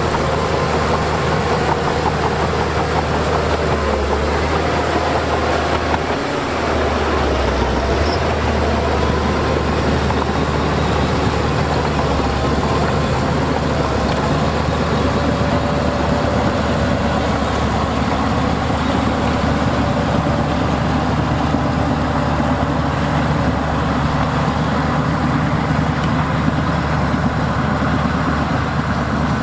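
Heavy diesel earthmoving machinery at work: a big diesel engine runs steadily under load, its pitch wavering slightly up and down.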